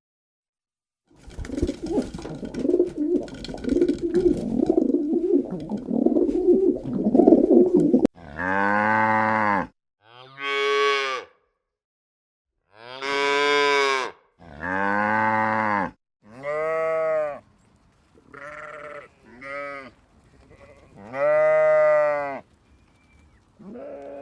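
A few seconds of rough, irregular noise, then cattle mooing: about eight separate calls, each rising and falling in pitch, some short, the last loud and long.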